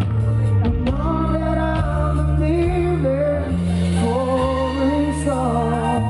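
Live band playing a song: a man sings a melody that rises and falls over electric guitar, keyboard, bass guitar and drums.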